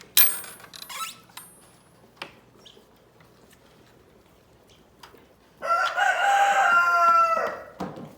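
A rooster crows once, a single loud call of about two seconds starting a little past halfway, falling in pitch at its end. Just after the start there is a sharp knock with a brief high ring.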